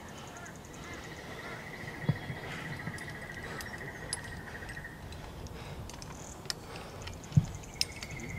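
Outdoor chorus of trilling calls: a fast pulsed trill at one steady pitch lasting about four seconds, starting again near the end, with a higher, faster ticking trill over it at the start and near the end. Two short dull thumps, the louder about seven seconds in.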